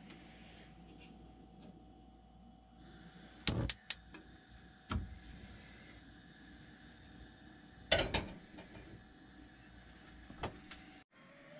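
A burner on a gas hob turned on: gas starts hissing, then a few sharp clicks of the igniter about three and a half seconds in and another a second later as the burner lights. Near eight seconds a louder metallic clank as a kettle is set down on the pan support, then a single click near the end.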